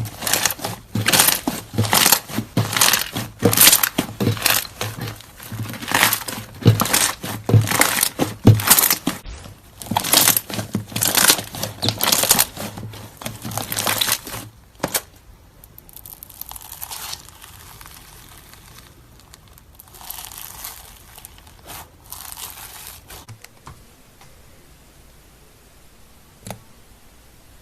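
Slime being squished and stretched by hand, giving a fast run of loud crackles and pops. After about fifteen seconds it turns to softer, quieter rustling, and it dies away with one small click near the end.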